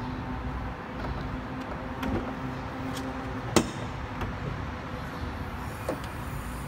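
Bonnet of a Mercedes-Benz C-Class W204 being unlatched and raised: a few light clicks and knocks, the loudest a single sharp clack about three and a half seconds in, over a steady low hum.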